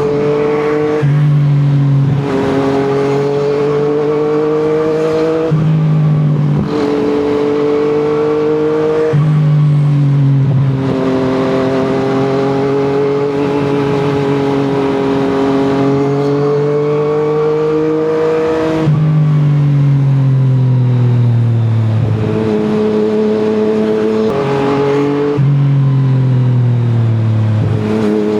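Yamaha MT-09's three-cylinder engine running through an Akrapovic exhaust under way, its note climbing and stepping with several gear changes, then falling twice as the bike slows in the last third.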